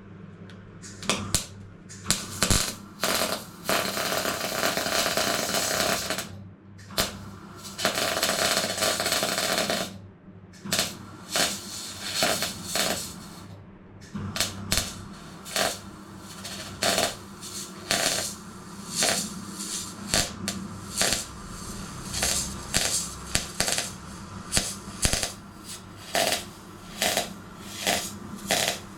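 MIG welder welding steel sill panels: two continuous weld runs of about three seconds each, then a long string of short tack welds, about one a second, over the welder's steady low hum.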